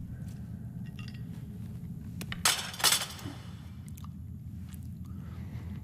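Glass dishes clinking on a table: faint taps, then two loud sharp clinks close together about halfway through, over a steady low hum.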